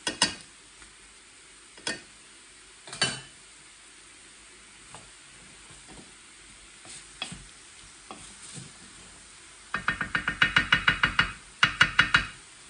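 Chicken and onions sizzling in a stainless steel pan, with a few separate clinks of metal tongs on the pan early on. Near the end a wooden spatula stirs and scrapes in the pan in two quick bursts of rapid strokes, about ten a second.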